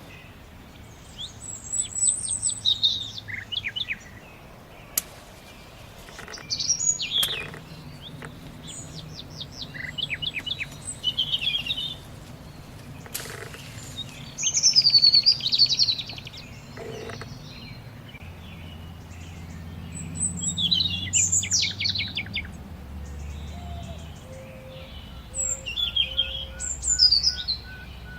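Garden songbirds singing short phrases of quick, falling whistled notes and trills, a burst every few seconds, over a steady low background hum. A few brief clicks fall in the pauses.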